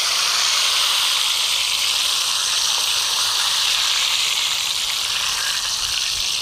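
Hot cooking oil sizzling steadily around a whole watermelon frying in a kadai, with the melon's water boiling off into the oil.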